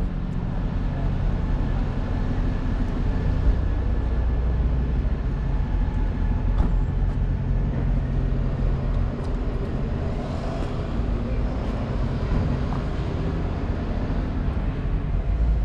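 BMW M5 Competition's twin-turbo V8 idling steadily through an Akrapovic exhaust, a low, even rumble with no revving.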